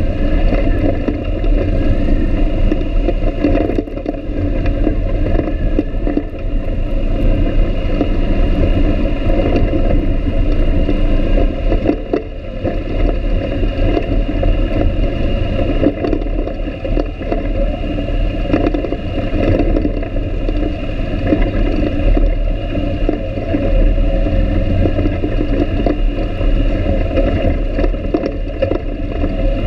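ATV engine running steadily as the quad rides a bumpy dirt trail, a muffled rumble that eases off briefly a couple of times.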